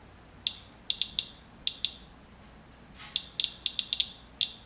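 Radalert Inspector Geiger counter clicking at random, uneven intervals, sometimes singly and sometimes in quick clusters, about three clicks a second. Each click is a count of radiation from the rain-water sample under the probe, which reads several times background.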